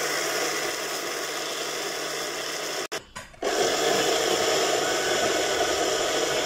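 Electric blender's dry grinding jar running steadily, milling fenugreek and garden cress seeds into a fine powder. The motor cuts off about three seconds in and starts again half a second later.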